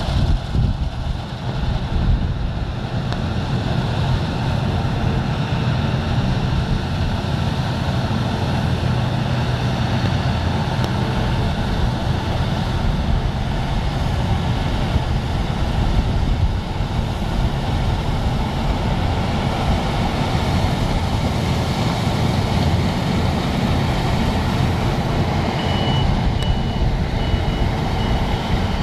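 Claas Lexion combine harvesters running steadily while cutting wheat, a constant engine drone with machine noise. Near the end a short high beep repeats about four times.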